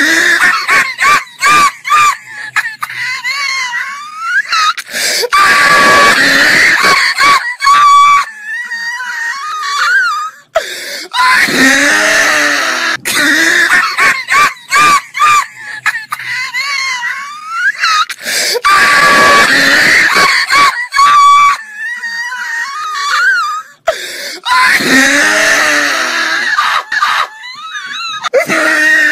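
High-pitched squealing, wheezing laughter in loud repeated bouts, broken by short gaps.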